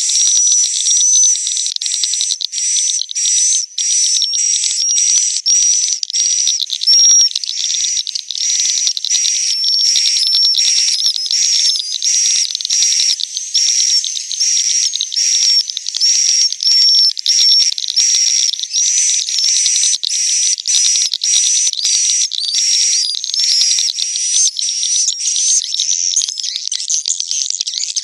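Swiftlets twittering and chirping continuously in a dense, high-pitched, rapidly repeating chatter. It is the swiftlet roosting call ('suara inap') played in swiftlet houses to draw birds in to roost.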